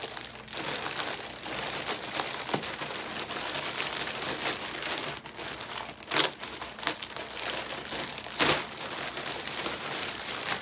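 Packaging on a gaming chair's backrest crinkling and rustling as it is opened and pulled off, with two louder, sharper rustles about six and eight and a half seconds in.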